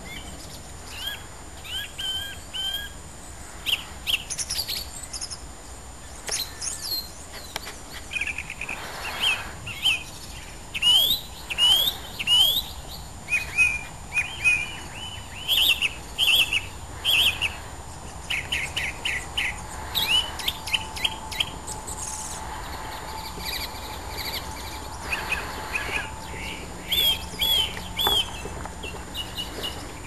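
An unseen songbird singing loudly and without a break: a long run of varied, high whistled and chirping phrases, some built of short notes repeated in quick series.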